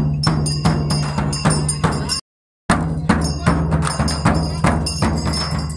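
Traditional festival music: drums beating a quick, steady rhythm over a held low tone. The sound drops out for about half a second around two seconds in.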